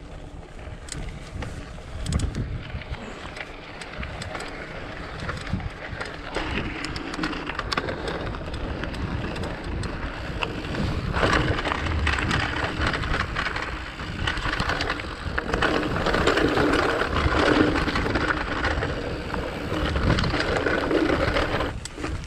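Decathlon Rockrider mountain bike rolling over rough singletrack: tyres crunching on gravel and rock, the bike rattling, with wind noise on the microphone. It grows louder about halfway through and eases off just before the end.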